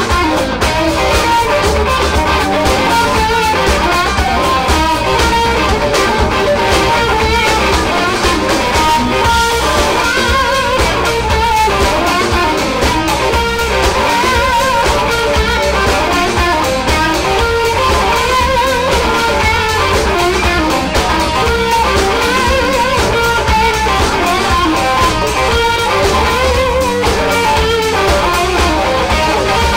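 Live blues band playing: electric guitar soloing with bending, wavering notes over drums and bass, loud and continuous.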